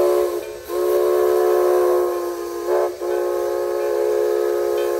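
Steam whistle of a Shay steam locomotive blowing a series of blasts: a short one ending about half a second in, a longer one, a brief one near the middle, then a long steady blast.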